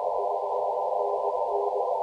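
Elecraft KX2 transceiver's receiver audio: steady band hiss through a narrow CW filter, with faint Morse code tones from other stations keying inside it.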